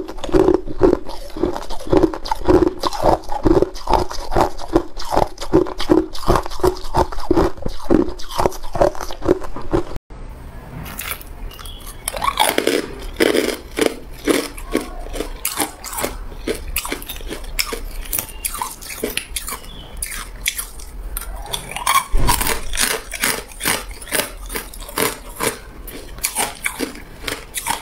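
Close-up crunching and chewing of hard ice cubes in the mouth: rapid, dense crunches. About ten seconds in the sound cuts abruptly and the crunching carries on a little quieter, with sharp bites now and then.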